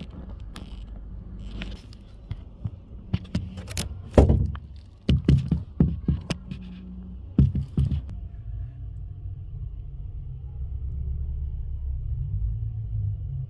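Sharp knocks, taps and scrapes of a phone being handled and bumped against concrete and a taped pipe in a narrow drain gap, the loudest about four seconds in. After about eight seconds the knocks stop and a steady low rumble remains.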